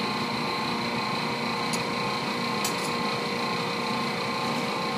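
Steady drone of commercial kitchen machinery, with two light clinks around the middle.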